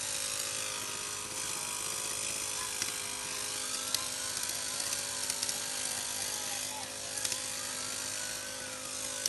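A small engine running at a steady pitch under a steady hiss, with a few sharp cracks here and there.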